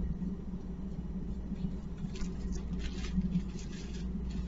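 Soft rustling of paper being handled, a few brief scrapes about two to three seconds in, over a steady low room hum.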